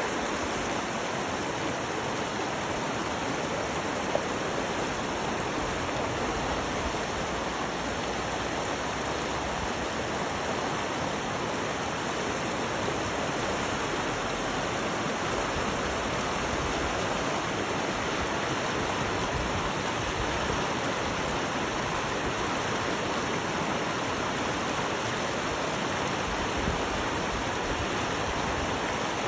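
Steady rushing water of a mountain stream, an even hiss that does not change.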